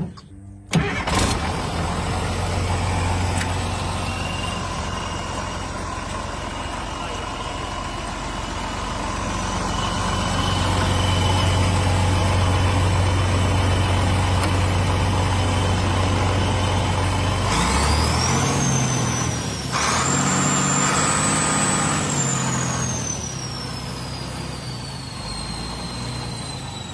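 An old bulldozer's diesel engine running, with a steady high whine over its note and a sharp knock about a second in. About two-thirds of the way through the engine is throttled up: its note changes and the whine climbs steeply, then slowly sinks as it winds back down.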